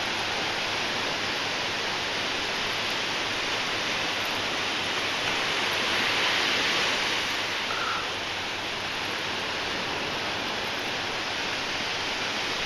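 Steady rush of small waves breaking on the shore, swelling a little about six seconds in.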